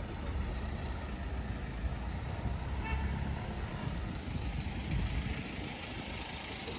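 City street traffic: a steady low rumble of passing engines, with a brief high-pitched tone about three seconds in.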